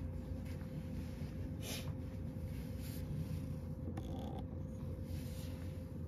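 Steady low hum of a room heater running, with a few brief soft rustles and a single click about four seconds in.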